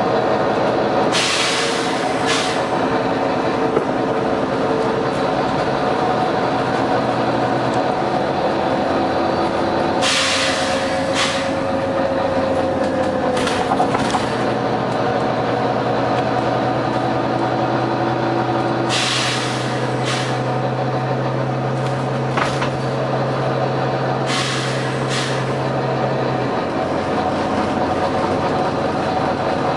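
Volvo B9TL double-decker bus running, its drive tones steady with a few shifts in pitch, broken every few seconds by short, sharp hisses of air released from its air brake and suspension system, some in quick pairs.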